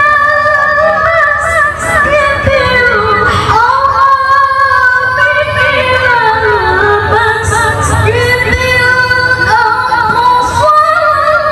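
A woman reciting the Qur'an in the melodic tilawah style, amplified through a microphone, holding long ornamented notes that wind up and down in pitch.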